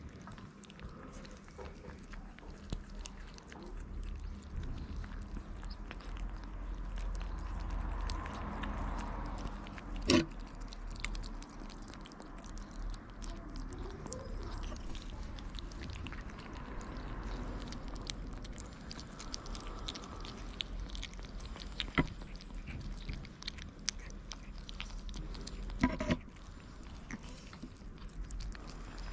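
Kittens chewing and smacking on wet cat food close to the microphone, with many small wet clicks. A few sharp knocks stand out, the loudest about ten seconds in.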